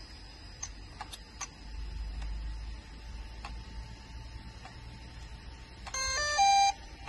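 Scattered light clicks over a faint steady high whine, then near the end a short, loud run of electronic beeps stepping through several pitches.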